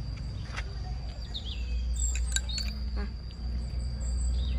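Small birds chirping in short, high calls, with a few light clicks and a steady low rumble underneath.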